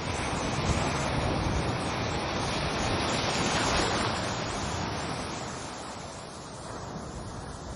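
Ocean waves washing in, a steady rushing noise that swells to its loudest about halfway through, ebbs away, then starts to build again near the end.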